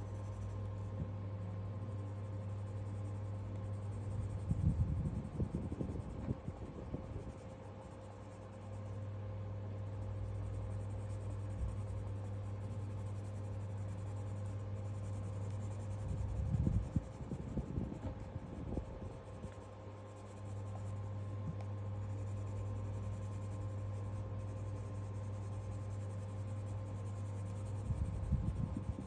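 Coloured pencil scratching over sketchbook paper in three short spells of colouring, over a steady low hum.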